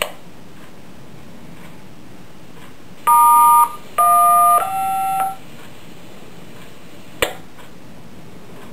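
Three short touch-tone (DTMF) beeps, each two notes sounding together, received over a handheld radio scanner's speaker about three seconds in. A sharp radio click follows a couple of seconds later, all over a steady radio hiss.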